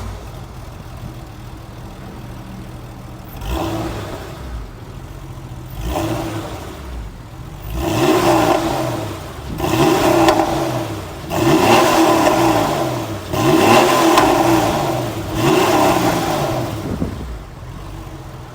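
Porsche 993 911's air-cooled 3.6-litre flat-six engine with dual exhaust, running steadily at first, then surging twice from about three and a half seconds in. From about eight seconds it revs hard in five pulls about two seconds apart, its pitch dropping and climbing with each.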